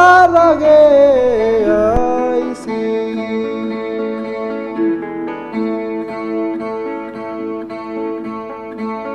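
A man's voice holds the last sung word of a verse in canto a lo poeta with a wavering, bending note for about two seconds, over a Chilean guitarrón. The guitarrón then carries on alone with steady repeated plucked chords as an interlude between verses.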